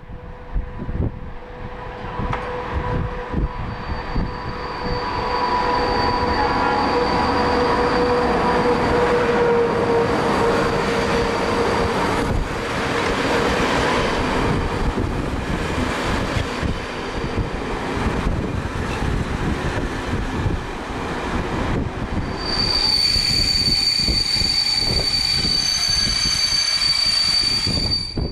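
Diesel-hauled passenger train pulling into a station: the locomotive approaches with a steady hum, then the coaches roll past close by. For the last six seconds or so a high, steady squeal from the wheels and brakes sounds as the train slows to a stop.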